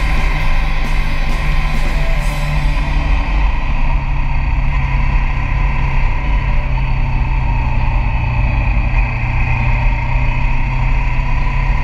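Rock music with guitar and drums, over the steady running of a motorcycle on the road.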